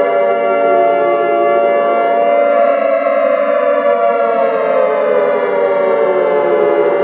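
Civil defense sirens wailing: steady tones held under another siren whose pitch slowly falls, rises to a peak about three seconds in, and falls again.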